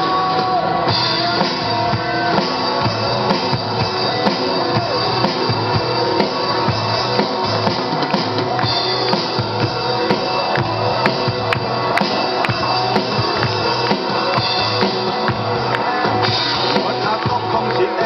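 Live rock band playing an instrumental passage, with drum kit and guitar and a steady beat.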